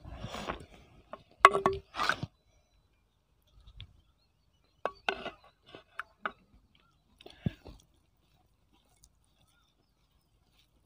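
Close-miked eating sounds of a man eating chicken biryani by hand: chewing and mouth noises in short separate bursts, the loudest about two seconds in. About halfway through come a few sharp clicks and knocks as a wooden stick stirs gravy in a clay pot.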